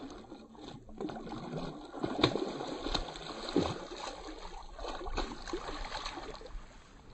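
A hooked red-bellied pacu thrashing at the water's surface while being reeled in, in irregular bursts of splashing with a few sharp slaps, dying away near the end.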